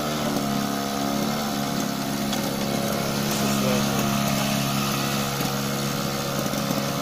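Small fuel-powered engine of a homemade mini tracked excavator running steadily at an even pitch while the machine swings its upper body round.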